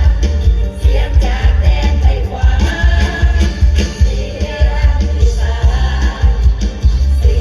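Isan mor lam music: phin and khaen melody over a heavy, steady bass and drum beat.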